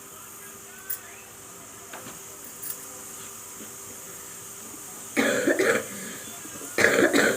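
A woman coughing in two short fits, about five seconds in and again near the end, after a few seconds of faint clicks.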